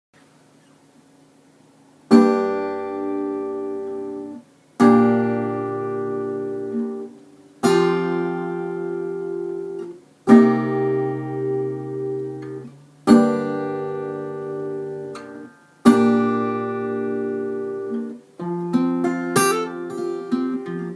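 Acoustic guitar playing a slow intro: after about two seconds of quiet, six full chords are each strummed once and left to ring, roughly one every two and a half seconds. Quicker strumming follows near the end.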